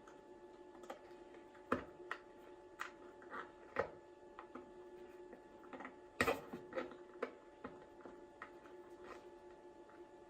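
Light, irregular clicks and taps of small metal parts being handled while a tiny screw is refitted into the lighter's bezel assembly, the sharpest tap about six seconds in, over a steady faint hum.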